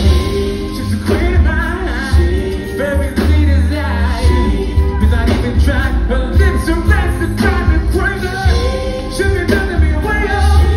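Live R&B band playing: drums and a heavy pulsing bass under keys, with a male singer ad-libbing over the top.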